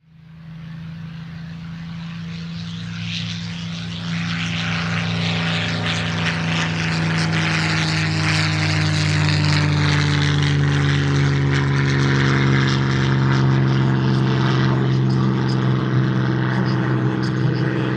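A vintage propeller-driven fighter's piston engine running. The drone grows louder over the first few seconds, then holds steady while its pitch sinks slightly.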